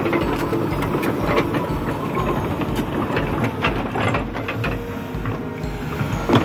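Komatsu PC200LC-6 crawler excavator on the move, its Cummins-built diesel engine running steadily while the steel track chains clank and rattle in irregular clicks and knocks.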